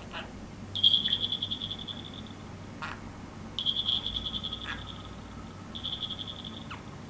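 Budgerigar chattering: three drawn-out buzzy, rapidly pulsing high notes, each lasting about a second, with quick falling chirps between them.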